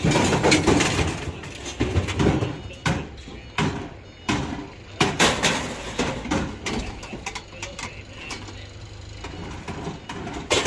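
Scrap metal being handled and tossed about in the back of a van: repeated sharp clangs and knocks, the loudest cluster in the first second, over a steady low hum.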